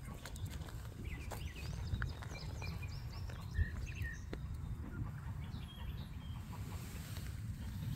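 Small birds chirping in short, quick calls, over a steady low rumble of wind on the microphone, with a few sharp clicks.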